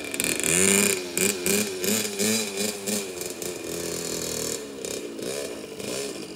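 Small dirt bike's engine revving up and down in a run of quick throttle blips, then running lower and steadier with a couple more dips near the end.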